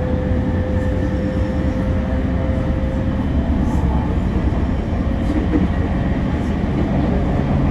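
Running noise inside a moving train carriage: a steady low rumble from the wheels and running gear, with a thin steady whine that fades out about three seconds in.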